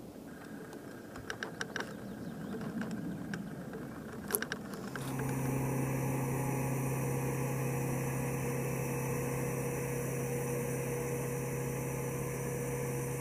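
Quadcopter drone, the Joint Tactical Aerial Resupply Vehicle prototype, flying: after a few scattered clicks and ticks, a steady propeller hum sets in about five seconds in and holds.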